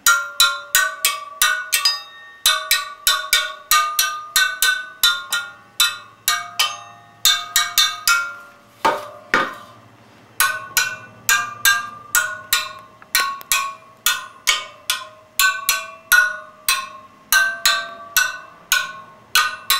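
Screwdriver tapping the spokes of a wire-spoked motorcycle wheel one after another, about two to three taps a second, each spoke ringing with a clear ping whose pitch shifts a little from spoke to spoke, with a short pause about halfway. Every spoke rings rather than sounding dull, the sign that none is loose.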